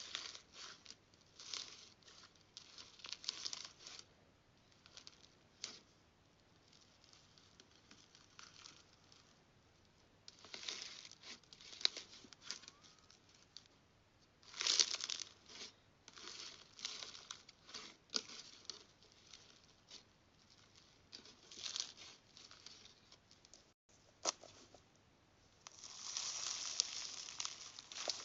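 Hands squishing and stretching slime: irregular bursts of sticky crackling and popping, with a longer unbroken crackle near the end.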